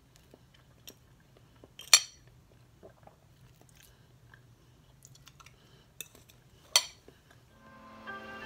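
Metal fork clinking and scraping against a ceramic plate as it cuts into a slice of cake, with scattered light ticks and two sharp clinks, one about two seconds in and a louder-looking one near the end.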